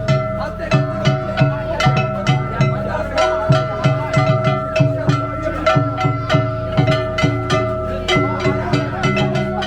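Live danjiri festival music (danjiri bayashi): quick drum strokes, several a second, under long steady high notes.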